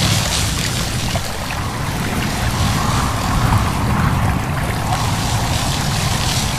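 A babbling stream mixed with wind in the leaves: a steady rushing noise with a low rumble, its high hiss swelling and easing a few times.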